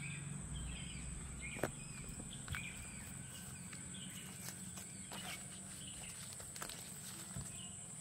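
Faint rice-field ambience: a steady high-pitched insect drone, with short bird chirps every second or so and a few soft ticks.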